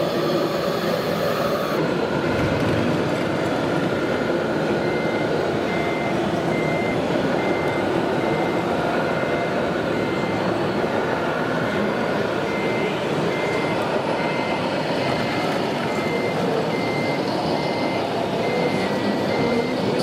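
Reversing beeper of a 1:16-scale RC truck's sound module: a high beep repeating at an even pace, starting about five seconds in and stopping near the end, over a steady background din.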